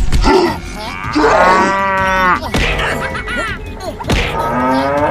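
Buffalo or cow mooing, twice: a long moo about a second in and another near the end, with shorter high-pitched calls between them.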